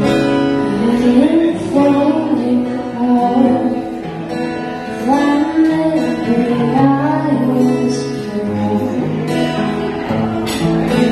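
A woman singing live to a strummed and picked acoustic guitar.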